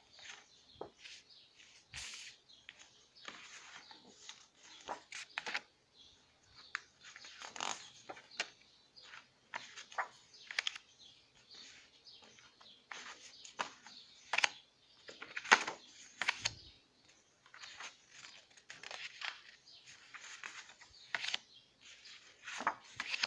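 Sheets of patterned 4x6-inch scrapbook card paper rustling and sliding against each other as they are handled and laid down one after another, in short irregular brushes, one louder than the rest about fifteen seconds in.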